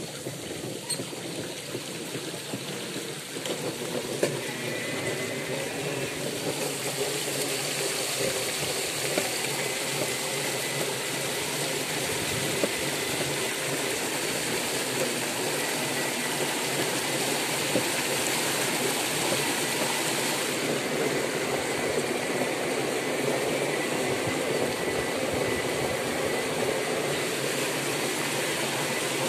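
Floodwater churning and splashing around the wheels of a van moving along a flooded road: a steady rushing noise that builds over the first few seconds and then holds.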